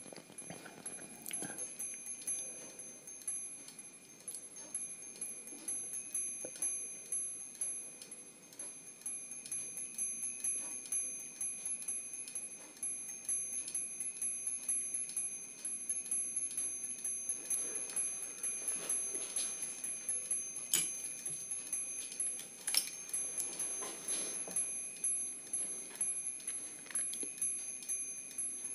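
Brass angel chimes turned by the warmth of their candles: the strikers on the spinning rotor tap the small bells over and over, a light tinkling with a high ringing that carries on between strikes.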